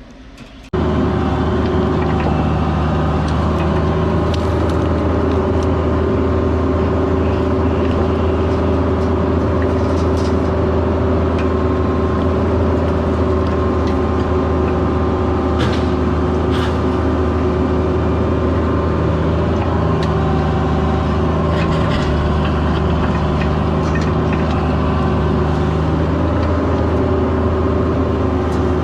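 Caterpillar 304 mini excavator's diesel engine running steadily under work, with a few scattered light clanks. It cuts in abruptly about a second in.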